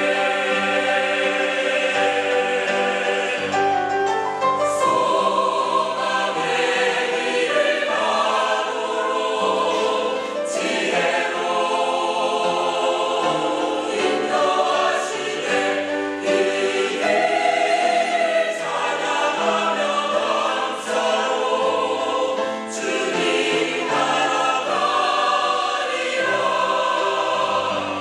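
Church choir singing a sacred anthem, many voices holding sustained chords that change every second or two.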